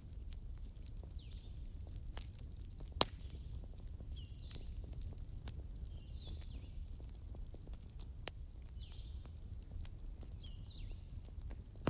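Wood fire crackling in a fireplace, with scattered small snaps and two sharp pops, the loudest about three seconds in and another about eight seconds in, over a low steady rumble of the burning. A faint high chirp repeats every second or so in the background.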